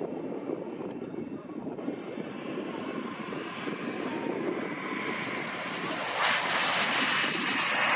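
Embraer Legacy 650 business jet touching down and rolling out, its two rear-mounted Rolls-Royce AE3007 turbofans giving a steady rumble. About six seconds in the jet noise turns louder and hissier.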